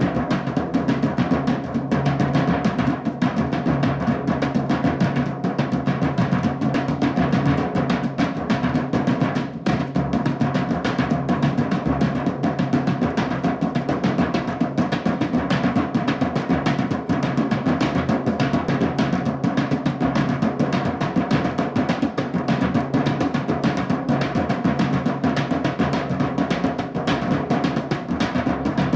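Drumming music: a fast, unbroken run of drum strikes.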